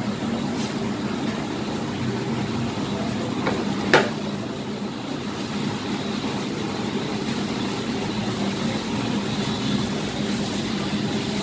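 Steady mechanical hum of running machinery in the room, with one sharp click about four seconds in.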